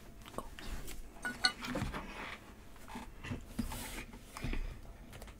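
Faint rubbing and scattered light knocks of a cardboard trading-card box being handled and picked up.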